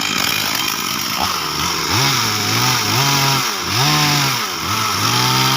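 Chainsaw running and being revved in four bursts, its pitch rising and falling with each, the last burst held longest.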